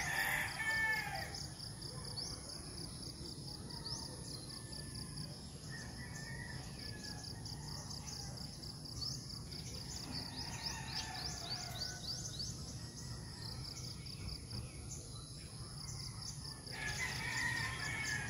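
Rural tropical morning ambience: insects keep up a steady, rapidly pulsing high buzz over a constant higher whine, while birds call and chirp, with a louder call right at the start and another burst of calls near the end, over a low steady rumble.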